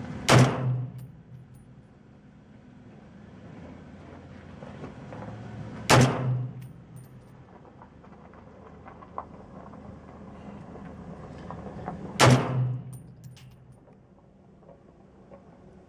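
Three shots from a custom .308 AR-10-type carbine with a 16-inch barrel and a Battle Comp muzzle brake, about six seconds apart. Each is a sharp report with heavy muzzle blast from the brake, followed by a booming echo that dies away over about a second.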